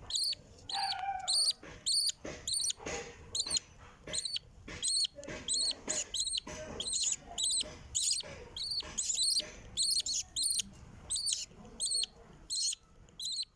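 Baby birds giving begging calls, short high chirps repeated about twice a second, with some lower calls and rustling mixed in over the first part.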